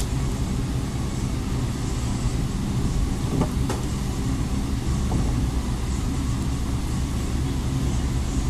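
Steady low background rumble, with a few faint plastic clicks about three and a half seconds in as a phone's back housing is pressed into place.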